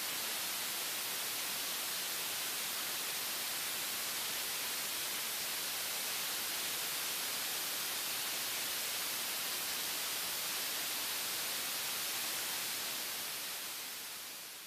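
General Electric F110 afterburning turbofan running on a test stand: a steady rushing hiss with little low rumble, fading away near the end.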